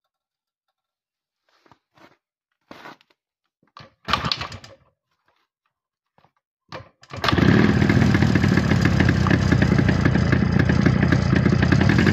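Jawa 350 Deluxe two-stroke twin-cylinder motorcycle engine being kick-started after long standing unused: a few short knocks, then it catches about seven seconds in and runs steadily.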